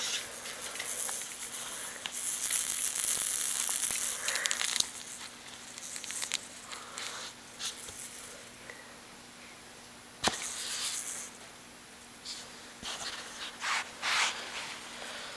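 Rustling and crinkling handling noise. There is a loud hiss for about three seconds early in the stretch, a single sharp click about ten seconds in, and short scratchy bursts near the end.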